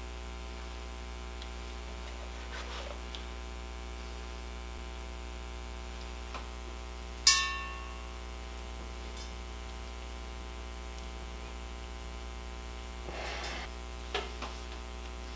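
Steady electrical mains hum throughout, with one sharp metallic clink about seven seconds in that rings briefly, from metal parts being fitted into a motorcycle wheel hub. Near the end, a rag rubs on the hub with a couple of small clicks.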